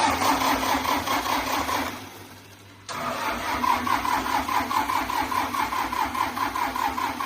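Diesel engine of a Swaraj tractor being cranked on its starter motor in two goes: a short one of about two seconds, a pause, then a longer one. Each goes with an even chug of about four compression strokes a second. The engine does not catch, because fuel is not yet getting through to it.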